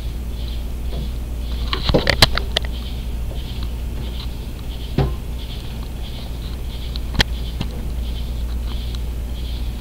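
Large moth striking a window pane: a quick flurry of taps about two seconds in, then single knocks near the middle and again about seven seconds in. A high chirping pulses about twice a second throughout.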